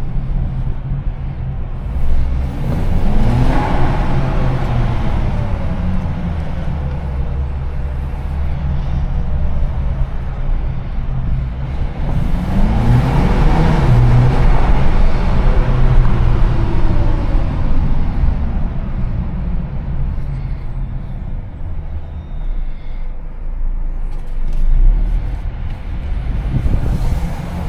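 Twin-charged Mercedes engine under hard acceleration: its pitch climbs a couple of seconds in and again about twelve seconds in, over a steady low engine drone.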